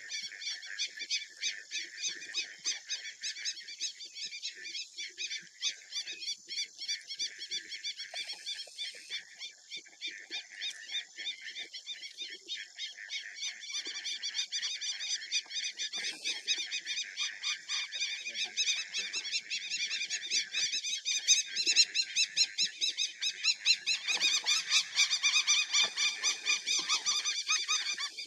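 A continuous chorus of rapid, high-pitched pulsing animal calls, with scattered lower animal sounds that grow louder over the last few seconds.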